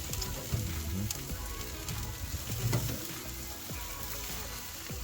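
Jerk chicken sizzling steadily on a hot grill.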